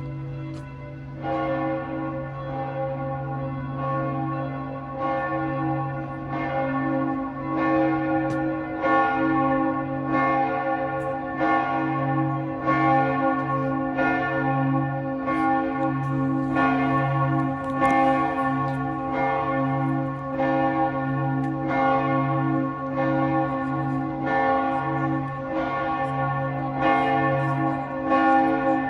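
Church bells ringing a full peal: several bells strike in overlapping succession about once a second, over the long deep hum of a large bell.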